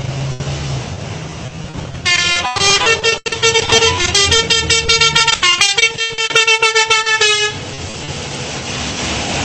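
Car horn honking in a quick run of many short blasts for about five seconds, starting about two seconds in, over the low running of slow-moving cars' engines.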